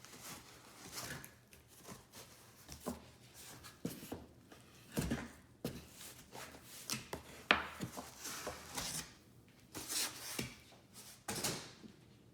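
Cardboard box and packing material being handled and pulled apart: irregular scrapes, rubbing and sharp knocks, the loudest ones coming in the second half.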